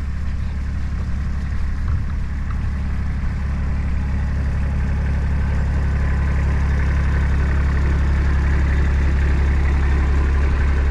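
A motor vehicle's engine running steadily with a low hum, getting somewhat louder partway through.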